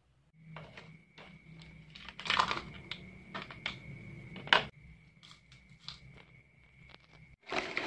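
Ingredients being tipped and handled in a glass bowl of fried grasshoppers: light clicks and rustles, with a sharp clink about four and a half seconds in and a louder rustle near the end, over a faint steady high whine.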